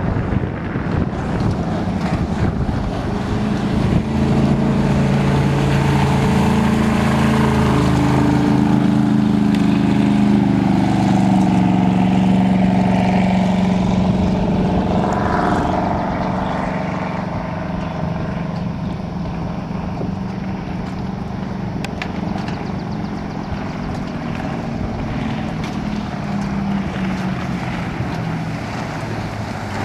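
1972 Sidewinder 18SS jet boat's 455 Oldsmobile V8, with its Berkeley jet drive, running steadily under way. About halfway through it eases off, turning quieter and lower.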